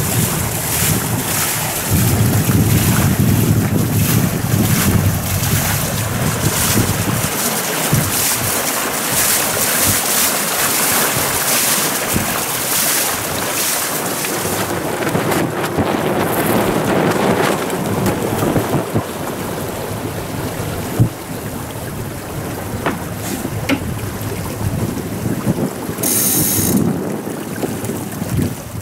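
Wind buffeting the microphone over the rush and hiss of water along the hulls of a Tricat 25 trimaran under sail, with heavier low gusts in the first few seconds.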